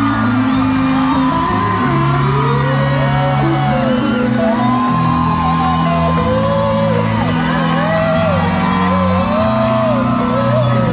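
Live rock band playing through a large hall's PA, recorded from the audience: held low bass and keyboard chords that change every second or two, with a gliding, wavering higher melody line on top. The crowd shouts and whoops over the music.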